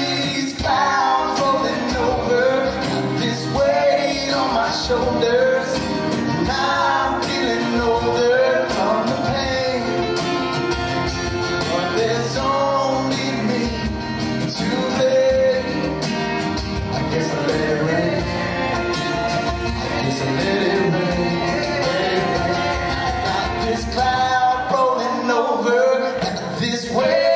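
Live acoustic band playing: two strummed acoustic guitars and a djembe, with singing.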